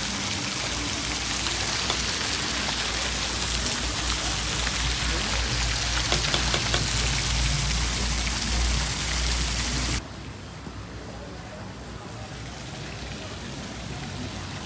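Garden fountain jets splashing into their basin: a steady hiss of falling water. It drops abruptly to a quieter level about ten seconds in.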